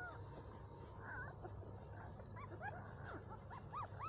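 Young puppies squeaking and whimpering as they jostle to nurse from their mother: many short, high squeaks that rise and fall in pitch, coming thicker toward the end, over a low steady hum.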